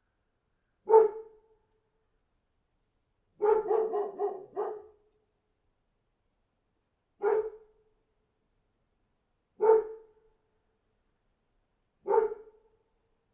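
A dog barking. There is a single bark, then a quick run of about five barks, then three more single barks spaced a couple of seconds apart.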